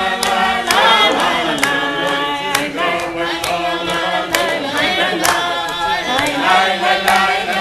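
A group of people singing a Hasidic niggun together, with hand claps on the beat.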